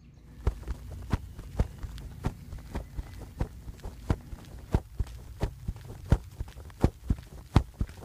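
Footsteps of a person walking at a steady pace, about three steps every two seconds, each a sharp knock, over a low steady rumble.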